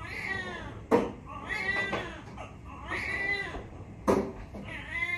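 Newborn baby crying: a string of short cries that rise and fall in pitch, about one every second and a half. Two sharp knocks cut in, about a second in and again near the end, louder than the cries.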